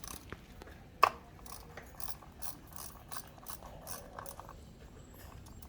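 Ratchet wrench clicking in short runs as the fasteners of a motorcycle cover are loosened, with one sharp metallic click about a second in.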